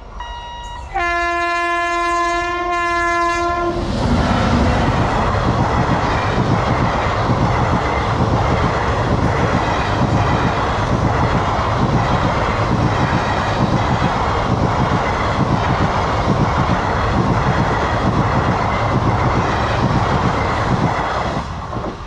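Teesta Torsa Express passing at speed. The locomotive's horn sounds about a second in, in two blasts close together lasting about three seconds in all. Then the passenger coaches run by with a steady rumble and rhythmic wheel clatter, easing off near the end. A few electronic beeps are heard at the very start.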